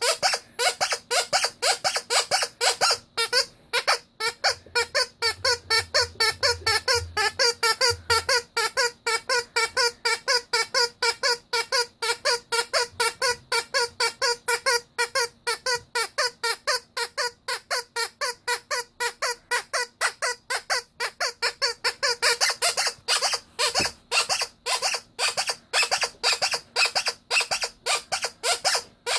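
Rubber squeaky toy squeezed over and over, giving a fast, even run of short squeaks, about three to four a second.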